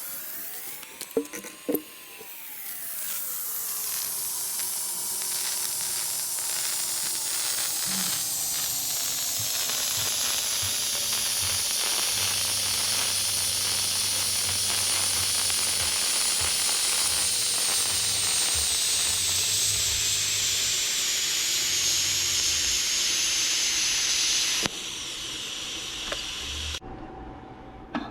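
TIG welding arc on copper, a steady hiss with slowly gliding tones. It starts after a couple of knocks about two seconds in and cuts off a few seconds before the end.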